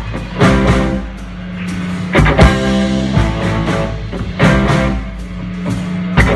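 Live rock-soul band playing an instrumental passage on electric guitars, bass guitar, keyboard and drums, with heavy accented band hits coming in pairs about every two seconds over a steady bass line.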